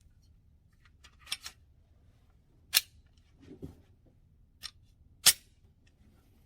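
A handful of sharp, irregularly spaced clicks, five in all with the loudest near the end, and a soft dull knock in the middle, against a quiet background.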